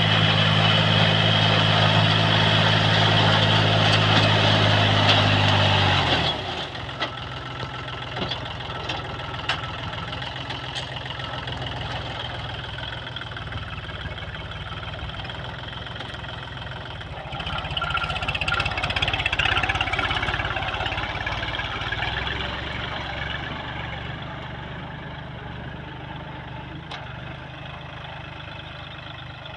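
Farm machinery engine running. A loud, steady engine hum for about the first six seconds drops suddenly to a quieter rumble, which swells again a little past halfway and then gradually fades.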